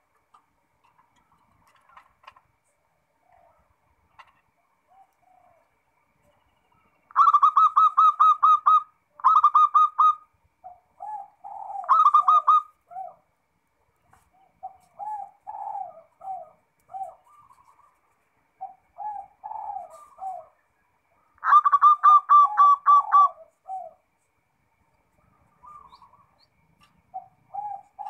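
Zebra doves (perkutut) cooing. Loud bursts of rapid staccato coos begin about a quarter of the way in and come again about three-quarters through, with lower-pitched cooing phrases in between.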